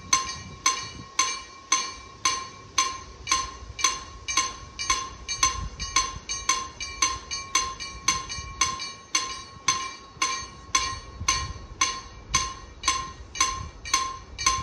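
Electronic level-crossing warning bell (KLD-4013, driven by an EHZ-13 crossing system) striking steadily, about two rings a second, each a bright bell-like ding: the crossing is closed for an approaching train.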